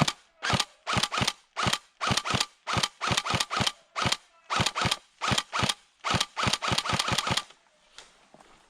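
Airsoft gun firing a long string of sharp shots, around two dozen in irregular quick succession and quickening near the end, then stopping about three-quarters of the way through.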